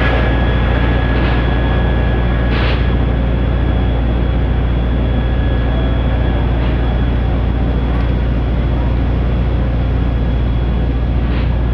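Fire truck's engine and pump running steadily: a loud, constant deep drone with a faint high whine over it.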